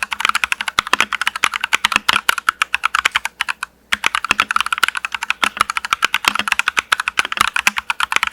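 Fast typing on a mechanical keyboard fitted with tactile brown switches (40 g actuation): a quick, dense run of key clacks, with a short pause about three and a half seconds in.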